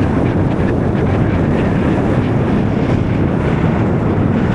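Strong wind buffeting the microphone: a loud, steady blast of noise heaviest in the low end.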